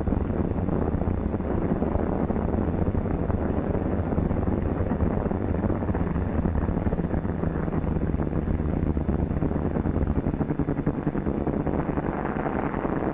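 C-47's twin Pratt & Whitney R-1830 radial engines at takeoff power during the takeoff roll: a loud, steady drone with a rushing noise over it. The deep part of the drone drops away about ten seconds in.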